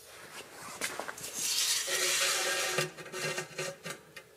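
Handling noise of a steel tape measure and an aluminum toe plate as the tape is hooked onto the plate: a few light clicks, then a scraping, rattling stretch about a second and a half in, then more light metal ticks.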